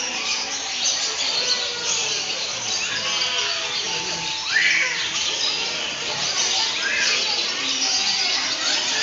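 Many birds chirping and squawking together in a dense chorus, with a louder, sharp rising call about halfway through.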